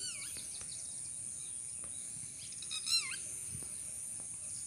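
Bird calls: a few short whistled notes right at the start and a louder chirping call about three seconds in, over a steady high-pitched hum.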